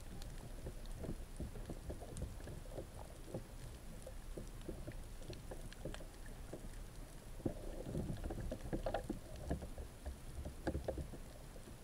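Underwater sound picked up by an action camera in its waterproof housing: a low, muffled rumble of moving water with scattered small clicks and pops, a little louder for a few seconds about two-thirds of the way through.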